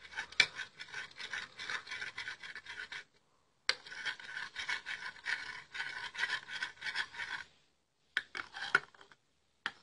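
A utensil scraping quickly around a bowl, stirring a wet mixture of egg white, turmeric powder and lemon juice. It goes in two long runs of rapid strokes with a short pause about three seconds in, then a few brief strokes near the end.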